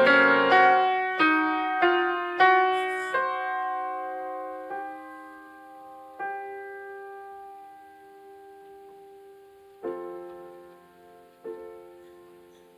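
Solo piano: a run of struck notes that slows into a few separate chords, each left to ring and fade away.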